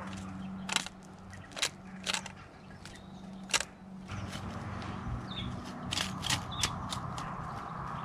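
Great spotted woodpecker out of view: a dozen or so sharp, irregularly spaced clicks and taps, over a steady low hum.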